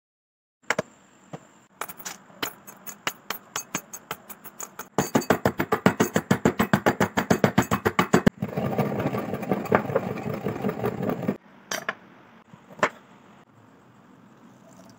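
Metal pestle pounding hard white candy rings in a metal mortar. Sharp strikes begin a few a second and speed up into rapid, loud pounding, then give way to about three seconds of continuous grinding, with a couple of last knocks near the end.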